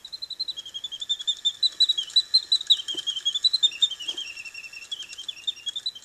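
Mechanical singing-bird automaton warbling: rapid, continuous chirps whose pitch slides slowly down and back up again.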